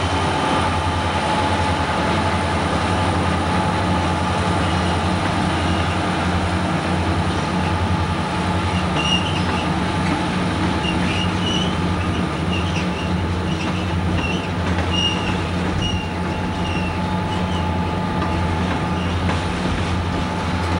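Diesel locomotives running with a steady low drone as they pull a coal train slowly past. From about nine seconds in, the passing hopper cars' wheels give repeated short, high squeals.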